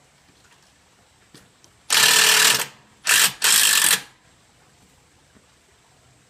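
Power drill-driver with a nut-driver bit driving a self-drilling screw into the metal column cover. It runs in three bursts: one of about half a second, then two short ones a second later as the screw is run down.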